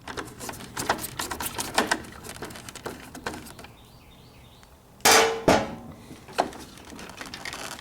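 Clicks, knocks and rattles of a tool and metal parts being worked in a washing machine's control console as the timer is loosened and pulled out, with one loud metallic clang about five seconds in.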